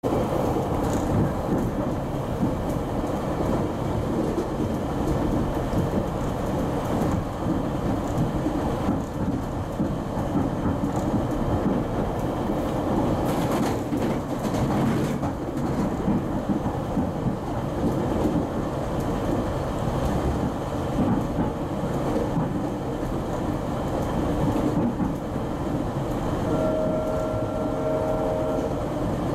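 Steady rumble of a GO Transit commuter train running along the track, heard from inside the coach. A steady multi-note tone sounds for about two seconds near the end.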